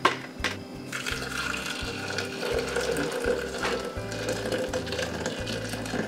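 Hot water pouring steadily into a glass French press onto freshly ground coffee, blooming the grounds, after a sharp click at the start.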